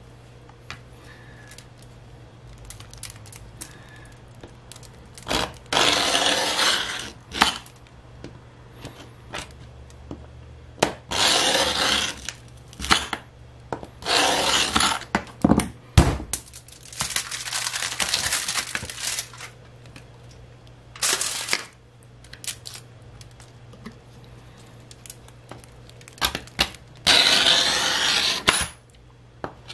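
A backer-board scoring knife is drawn along a ruler across a pane of sugar glass, making about six rasping scrapes of one to two seconds each. A single sharp knock comes about halfway through.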